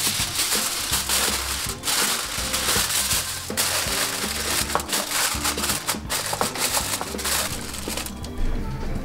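Aluminium foil crinkling and crumpling as it is pressed and crimped tightly over the rim of a pan, with two brief pauses and easing off near the end, over background music.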